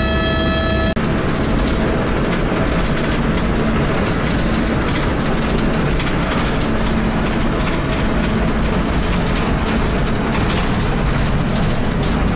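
Helicopter in flight. For about the first second there is a steady whine of several pitched tones over a low hum. Then the sound cuts suddenly to loud, steady cabin noise from inside the helicopter.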